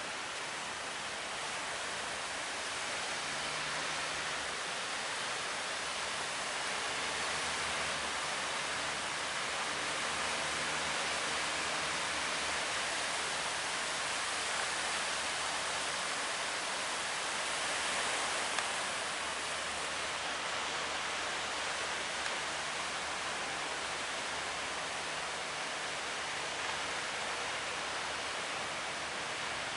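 Steady rushing noise of wind and sea water around a boat running through big waves, with a faint low engine drone underneath that comes and goes.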